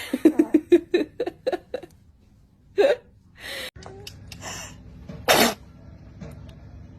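A baby sneezing: a quick string of short, breathy gasps in the first two seconds, then a few scattered breaths and a loud, sharp sneeze about five seconds in.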